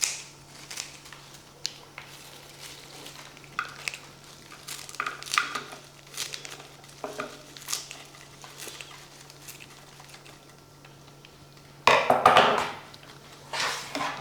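Kitchen handling sounds: scattered light clinks of dishes and utensils and soft rustling, with a louder scraping rustle about twelve seconds in.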